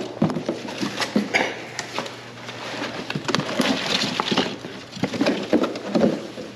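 Irregular clinks and knocks of metal parts and hand tools being handled during CV axle work, with a brief rustling stretch about halfway through.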